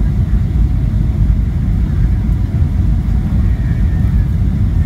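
Cabin noise of a Boeing 737-800 on final approach, heard from a window seat over the wing: a steady, loud low rumble of the CFM56 engines and airflow.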